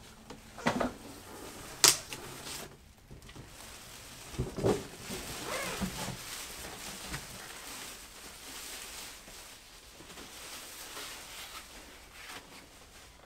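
Clear plastic wrapping crinkling and rustling as it is pulled off a new wheel, with a few knocks of handling against the cardboard boxes and a sharp click about two seconds in.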